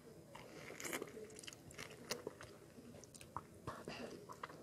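Mouth sounds of a person biting and chewing ripe mango: irregular short clicks and smacks.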